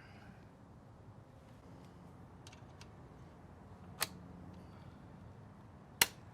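Two sharp knocks about two seconds apart, the second louder, with a few faint clicks before them: a motorcycle exhaust mounting bracket being worked into place by hand.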